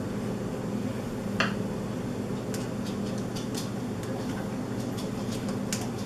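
Light clicks and taps of a hard plastic pedal being fitted against the arm of a Cubii Jr elliptical while its screw holes are lined up. One sharper click with a short ring comes about a second and a half in, over a steady low hum.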